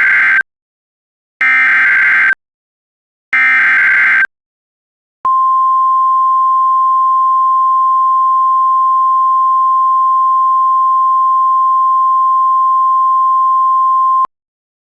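Emergency Alert System SAME header: three short bursts of digital data tones about two seconds apart, the first already under way, followed by a single steady attention tone of the weather-radio 1050 Hz kind lasting about nine seconds and cutting off abruptly. It is the opening of an alert, announcing the broadcast evacuation message that follows.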